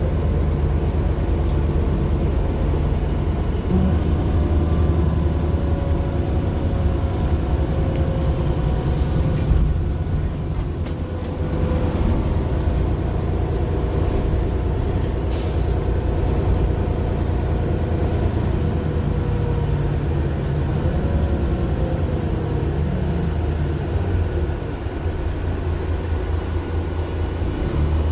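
Diesel engine of a 2009 Mercedes-Benz Citaro LE city bus (Daimler OM 457 hLA straight-six, ZF automatic gearbox) running steadily as the bus travels. The engine note shifts a few times, with a brief drop in level about ten seconds in.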